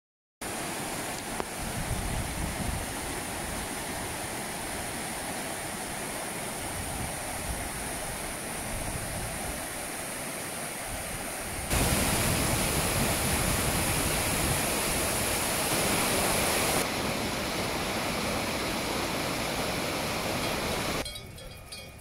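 Rushing whitewater of a rocky mountain stream: a steady, even roar of water that steps louder about halfway through and drops away sharply just before the end.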